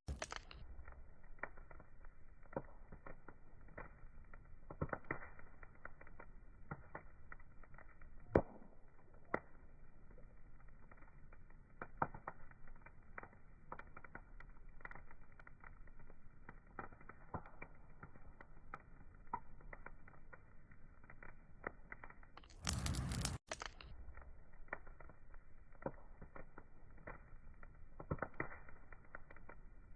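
Wood fire crackling: irregular pops and snaps over a soft steady hiss, with a short, louder burst of hiss about three-quarters of the way through.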